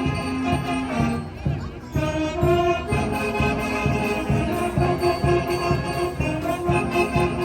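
Elementary-school wind band playing live: held brass and woodwind chords over a steady drum beat, with a short lull about a second and a half in.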